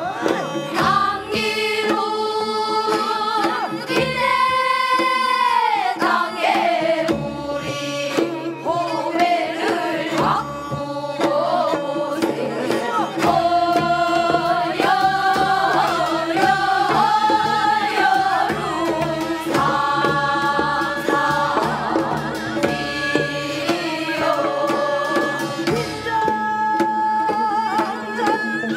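Korean traditional singing with drum accompaniment: the voice slides and wavers widely between held notes.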